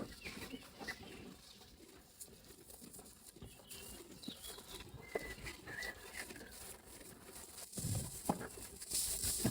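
Faint short bird chirps a little past halfway, amid scattered light rustles and knocks, with a low thump and a louder hissing rustle near the end.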